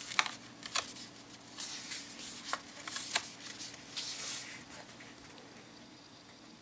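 Pages of a thick-paper bound planner being turned by hand: crisp paper flicks and rustles, several in the first four seconds, then quieter handling near the end.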